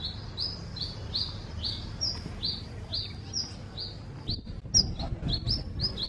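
Songbirds chirping in a tree: one bird repeats a short, high chirp about two to three times a second, and from about four seconds in sharper, more varied chirps join it. A low rumble runs underneath.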